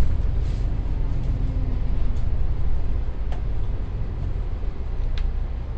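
Steady low engine and road rumble heard inside a moving double-decker bus, easing a little as the bus slows, with a few faint clicks or rattles from the cabin.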